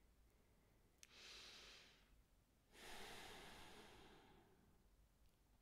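Two faint breaths close to the microphone: a short one about a second in, then a longer one that slowly fades out.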